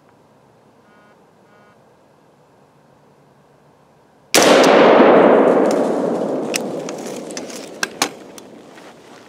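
A single rifle shot about four seconds in, its report echoing and dying away slowly through the woods over several seconds. A few sharp clicks follow near the end.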